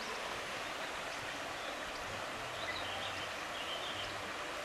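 Steady rush of river water flowing, with a few faint bird chirps around the middle.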